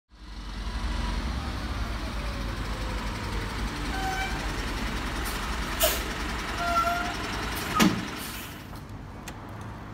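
Isuzu FTR box truck's diesel engine rumbling as it pulls up and stops, with a few short brake squeaks and two sharp bursts of noise about two seconds apart. The rumble falls away about eight and a half seconds in.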